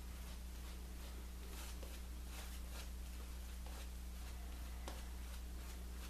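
Silvertip badger shaving brush with a 20 mm knot working soap lather on the face: soft, irregular swishing brush strokes. A steady low hum runs underneath.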